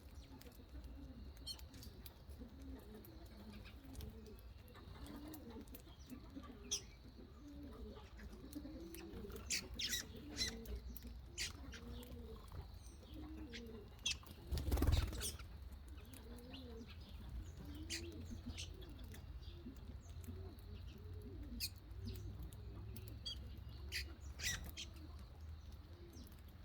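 Pigeons cooing over and over in low, soft, rolling calls, with scattered short high chirps from smaller birds. About halfway through comes a brief, louder rush, like wingbeats.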